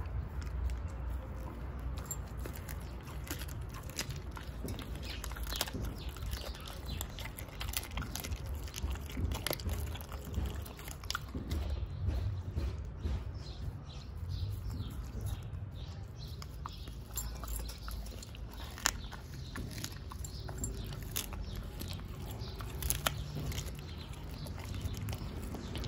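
Husky eating chicken backs from a bowl: irregular sharp crunches and chewing as the bones crack, over a steady low rumble.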